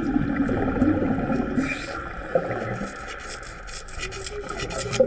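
Underwater sound of a diver's wet-welding work: a low rush of rising air bubbles for the first two seconds, then quieter, with rapid crackling clicks through the second half.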